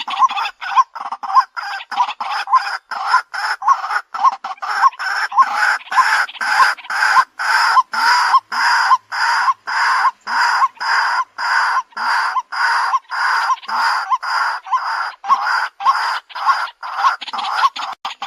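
White-breasted waterhen calling: a long unbroken series of short, evenly repeated calls, about two or three a second.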